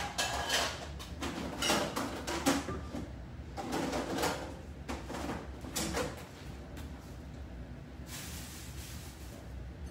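Off-camera kitchen handling sounds: irregular knocks and scrapes for about six seconds, then a short hiss near the end, over a steady low hum.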